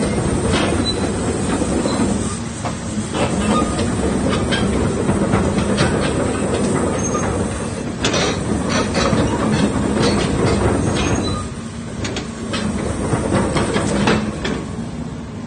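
Komatsu PC400-8 excavator's diesel engine running steadily under work, with repeated metallic clanks and knocks from the machine. The load eases twice, about two and a half seconds in and again near the end.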